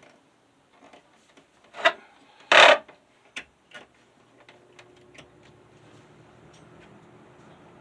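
Two sharp clacks, the louder one about two and a half seconds in, and a few lighter ticks as the Patton box fan is switched on, then the fan's black Fasco motor starts on low speed and a steady hum slowly builds as the blades spin up.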